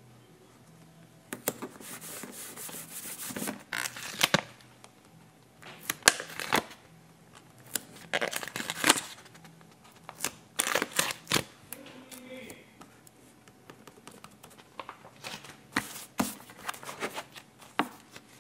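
Paper stickers being peeled off a sticker sheet and pressed onto a spiral notebook page: crinkling and rustling of paper in short irregular bouts, with sharp taps and scrapes.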